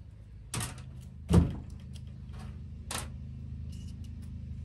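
A few light clicks and taps of a small Torx screwdriver and small metal parts being handled, with one louder knock about a second and a half in, over a steady low hum.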